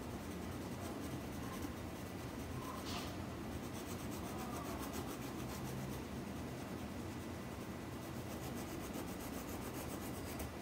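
Graphite pencil rubbing and scratching on paper, drawing a building's windows.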